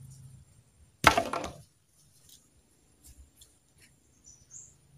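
One sharp wooden crack from a stick about a second in, dying away within half a second, followed by a few faint light clicks.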